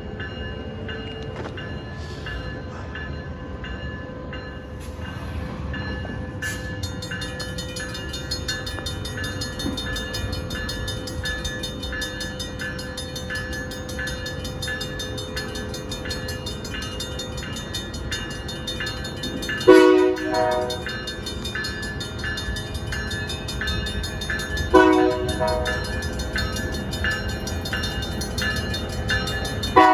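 Diesel freight locomotive running with a steady rumble and a regular repeating ring, its horn sounding three times: a blast about two-thirds of the way through, a short one some five seconds later, and another at the very end.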